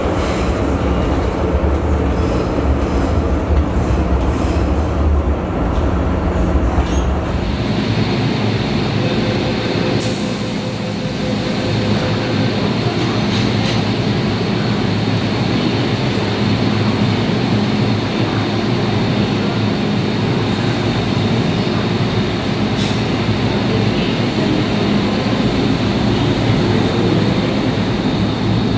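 Hong Kong MTR Metro Cammell EMU subway train: steady running rumble heard from inside the car, then the train standing at a platform behind screen doors, with a brief hiss about ten seconds in. Near the end a rising motor whine is heard as the train pulls away.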